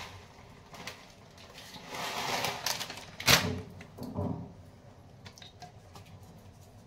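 Plastic packet rustling and kitchen handling knocks as boondi is poured into a steel bowl, with one sharp knock a little under halfway through and a duller thud just after.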